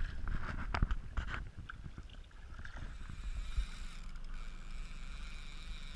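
Water splashing at the side of the boat as a released lake trout kicks free of the hands, then the steady hum of the boat's motor running while trolling.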